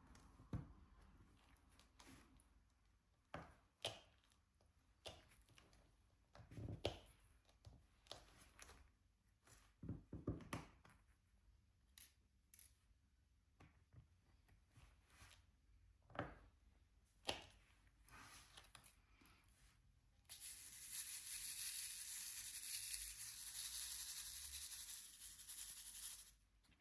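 Soft, irregular clicks and taps of resin drills being picked up and pressed onto a diamond painting canvas with an applicator pen. About twenty seconds in, a louder, steady hissing noise starts and lasts about six seconds, then stops suddenly.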